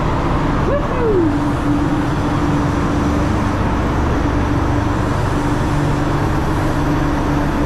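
Spray booth ventilation running: a steady rumble of air with a constant hum, and a brief falling tone about a second in.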